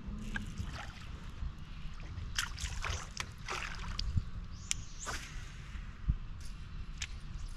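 Water sloshing and splashing against a bass boat's hull in short, irregular bursts, over a steady low rumble.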